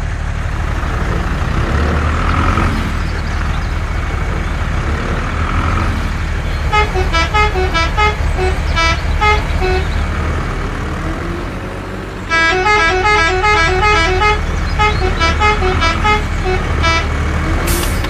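Vehicle engine running steadily, with a multi-note musical horn playing a tune of short stepped notes twice, about seven seconds in and again about twelve seconds in.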